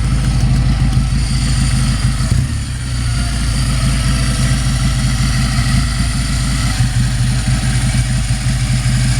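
Italian 750 cc two-cylinder motorcycle engine idling steadily.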